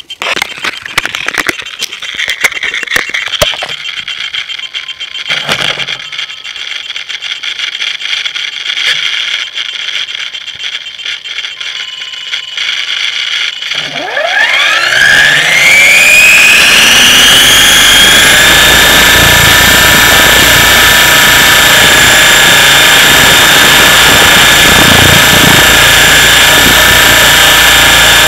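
Clicks and rattles as the RC helicopter is handled on the ground, then about fourteen seconds in its motor spools up in a steeply rising whine. It settles into a steady, loud high whine with rotor noise as the helicopter lifts off.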